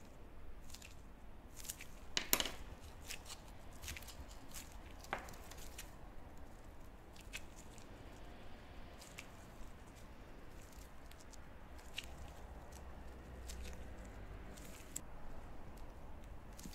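Scattered soft clicks and rustles of gloved hands working a piece of sweet-bean nerikiri dough with a wooden shaping tool, with one sharper click about two seconds in.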